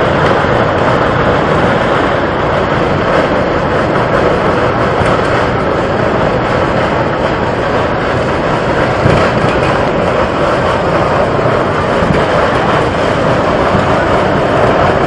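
Ground eruption of mud and water spraying high into the air under pressure, a loud steady rushing noise without a break.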